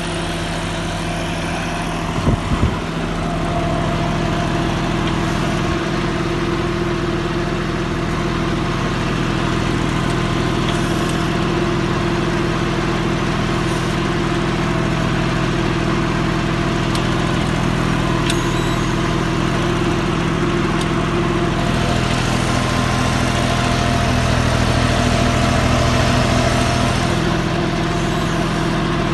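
John Deere 5310 tractor's three-cylinder diesel engine running steadily under load, pulling an 11-tine cultivator set to full depth in the soil. A couple of short knocks come about two seconds in, and the engine note shifts and grows slightly louder about 22 seconds in before settling back near the end.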